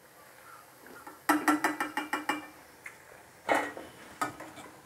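Metal slotted spoon scraping and clinking against a stainless steel kadai while lifting fried bondas out of the hot oil. A quick run of ringing scrapes comes about a second in, and two more strikes come near the end.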